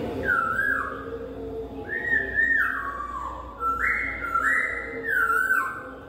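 Caged poksay hongkong, a laughingthrush, singing loud, clear whistled phrases. There are four in all, each a held high note that slides down to a lower one, with short breaks between them.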